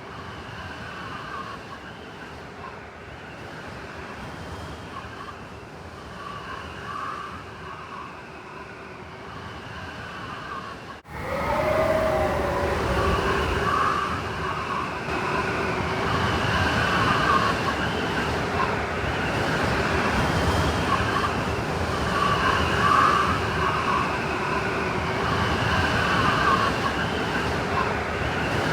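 Blizzard wind howling: a steady rushing with wavering whistling tones. About eleven seconds in it breaks off abruptly and comes back much louder.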